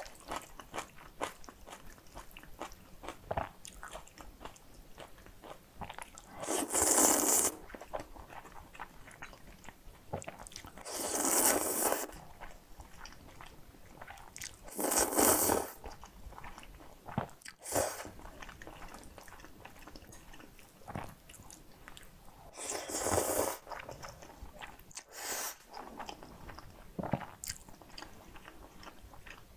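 Close-miked eating of kimchi bibim guksu: four loud slurps of noodles, each about a second long, with wet chewing and lip smacks between them.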